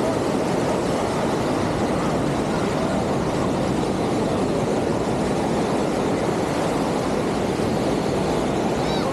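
Steady beachfront ambience: a continuous, even wash of noise with no distinct events, in which surf and road traffic are not told apart.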